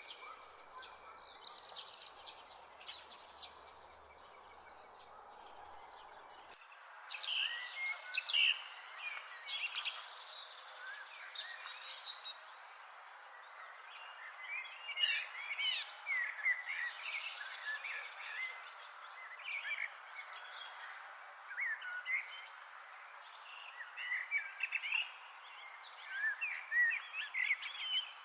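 Outdoor ambience of several birds chirping and singing over a steady, high-pitched, pulsing insect trill. About six seconds in the background changes abruptly, the low rumble drops away and the bird calls become busier.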